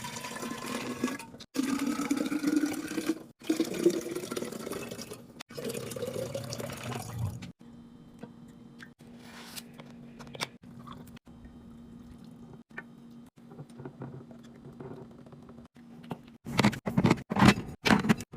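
Liquid being poured into containers, about three pours in a row, each rising in pitch as the container fills. Then a quieter stretch with a steady low hum and a few light clicks, and a clatter of items being handled near the end.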